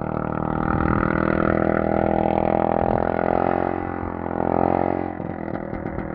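Very loud exhaust of a 550 engine under throttle. The pitch holds high, then drops about five seconds in as it backs off. The sound is comparable to a straight-piped Harley, though it is not a V-twin.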